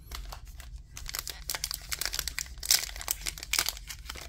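Trading-card pack wrapper crinkling in quick, irregular crackles as it is handled and opened, getting busier about a second in.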